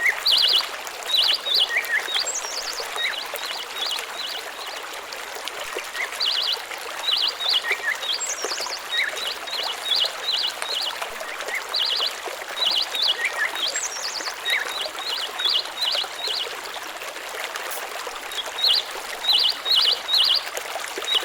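Small birds chirping in short, quick clusters of high notes, repeated every second or so, with now and then a higher falling note, over the steady rush of running water.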